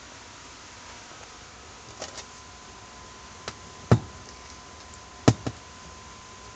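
A few sharp knocks and clicks of hands handling a suitcase record player's case, the two loudest about a second and a half apart, over a faint steady hum.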